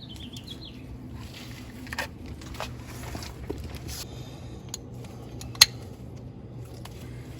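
Hand tools being handled under a car: a few scattered metallic clicks and clinks, the sharpest about five and a half seconds in, over a faint steady hum. A short bird chirp sounds at the very start.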